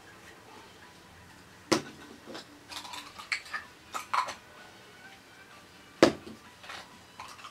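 Nesting-doll halves clicking and knocking as they are pulled apart and set down on a cardboard box. There is a sharp knock about two seconds in, a run of small clicks after it, and a louder knock about six seconds in.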